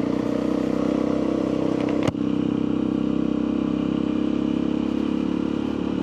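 Motorcycle engine running steadily under way, with one sharp click about two seconds in.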